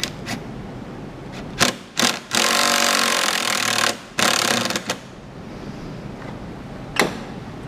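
A power driver run in two bursts, about a second and a half and then half a second, driving a nut down tight on a terminal bolt; a few clicks come before it and a sharp click near the end.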